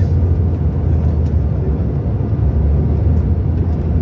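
Steady low rumble inside the passenger cabin of a CRJ-900 regional jet: rear-mounted turbofans running and the airframe moving, with a few faint clicks and rattles.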